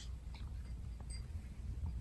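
Cat eating dry kibble: a few faint, scattered crunches and clicks as it chews.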